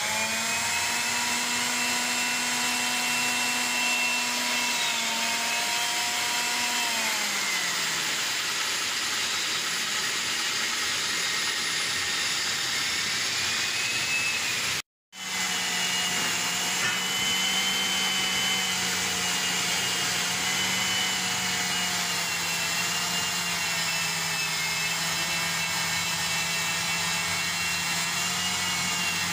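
Electric magnetic-base drill boring a hole through a steel plate: a steady motor whine over cutting noise. Its pitch sags about seven seconds in, the sound breaks off briefly about halfway, then it runs steadily again.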